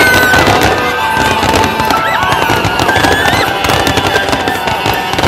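Fireworks crackling: gold crackle bursts give off dense, rapid pops. Music plays alongside, with sustained and gliding tones.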